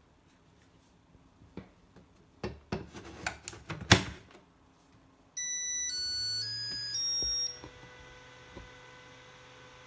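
A few clicks and knocks of handling, then the Makita DC18RF charger's electronic beeper plays a short tune of stepped notes for about two seconds, followed by a low steady hum.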